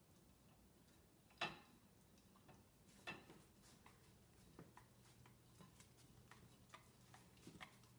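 Schnoodle licking dirty plates in an open dishwasher rack: faint, irregular small clicks and tongue smacks, with a sharper knock about one and a half seconds in and another about three seconds in.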